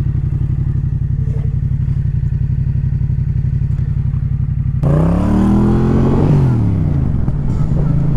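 Yamaha MT-07's parallel-twin engine idling with a steady low beat, then about five seconds in the throttle opens and the bike pulls away, its pitch climbing and then falling back. Wind noise rushes over the helmet microphone once it is moving.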